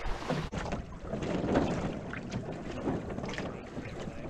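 Water splashing and rushing along the hulls of a Viper sailing catamaran under way, with wind buffeting the onboard camera's microphone. The splashing comes and goes irregularly.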